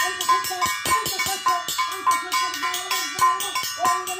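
Small hand-held metal gong, hung from a cord, beaten rapidly and unevenly with a wooden stick, each stroke ringing into the next.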